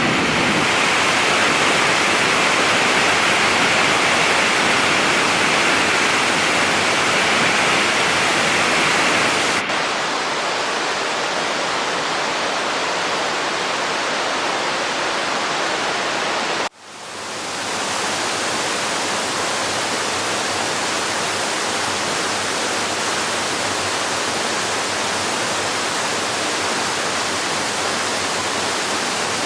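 Waterfalls: a steady, even rush of falling water. The sound changes abruptly twice, about a third of the way in and just past halfway, as one waterfall recording cuts to the next. At the second cut it drops out for a moment and then fades back in.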